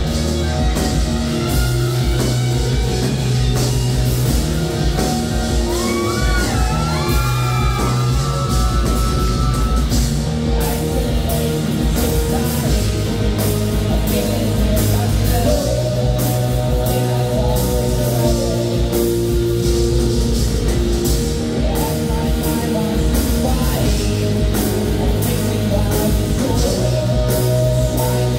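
Live rock band playing: drum kit, electric bass, electric guitar and keyboard, with a few high bending notes about six to nine seconds in.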